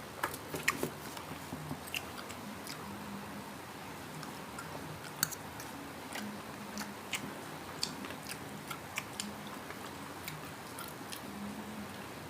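Biting and chewing crispy fried pork belly, with scattered sharp crunches from its crisp skin.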